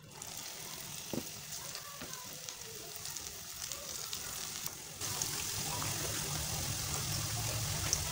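Cauliflower and cabbage balls deep-frying in hot oil: a steady sizzle with small crackling pops, growing louder and fuller about five seconds in.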